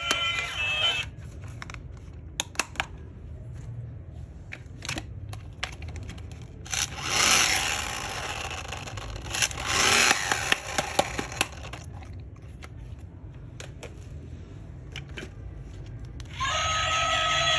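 Toys and packaging being handled: scattered small clicks and taps, with two louder stretches of noisy rustling about seven and ten seconds in. A toy's electronic tune cuts off about a second in and starts again near the end.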